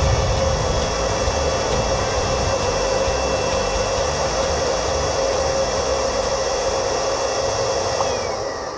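Handheld electric air blower running steadily with a high motor whine and rush of air, then switched off near the end, its whine falling as the motor winds down.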